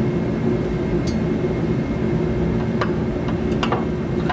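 A steady low machine hum, with a few light knocks and clicks as a coil spring is pushed into its seat in a car's front lower control arm.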